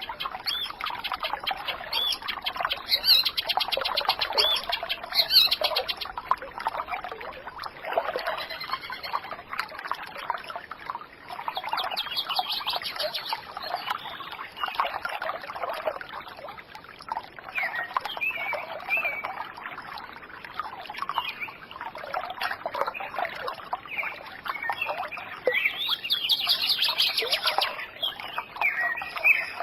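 Several birds chirping and singing at once, a busy mix of calls, over a soft trickle of running water.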